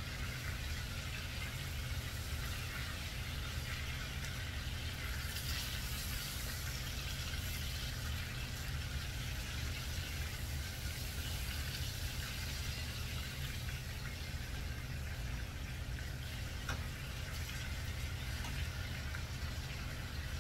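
Chicken thighs frying in a pan, a steady sizzle, over a constant low hum.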